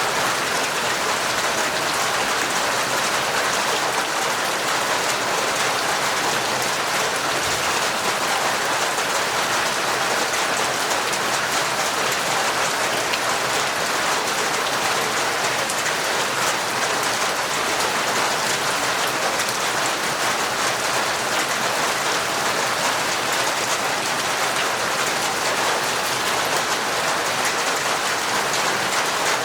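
Heavy, torrential rain falling in a steady downpour, a dense even hiss of countless drop impacts with no lulls or changes.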